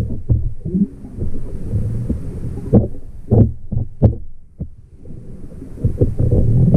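Muffled underwater rumble of water moving over a submerged action camera's housing as a diver swims along shallow rocks, with several dull knocks in the middle.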